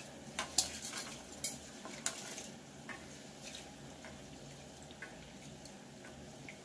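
Split moong dal being washed by hand in water in a stainless steel bowl: fingers stirring and rubbing the lentils, with several sharp clinks against the metal in the first couple of seconds, then fainter scattered ticks.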